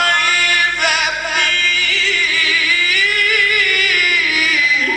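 A male Quran reciter chanting in the ornamented mujawwad style. His single voice glides through melismatic turns, then holds a long wavering note that breaks off near the end.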